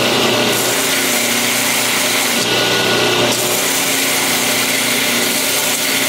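Belt grinder running while a knife part is ground against the belt, a steady motor hum under a grinding rasp whose texture changes every second or so as the work is pressed on and shifted.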